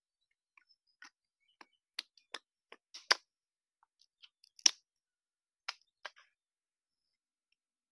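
Irregular sharp clicks and snaps of a small curved knife cutting into a jackfruit's stalk, about a dozen strokes, the two loudest a little past the middle.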